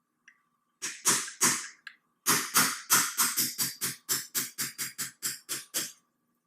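Hammer tapping a punch to drive a pin out of a TriStar Raptor shotgun's trigger assembly: a few separate taps, then a quick even run of about fifteen strikes, roughly four a second, that stops suddenly.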